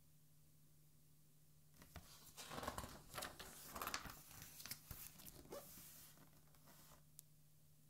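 A page of a hardcover art album being turned by hand: paper rustling and flapping for a few seconds from about two seconds in, then settling.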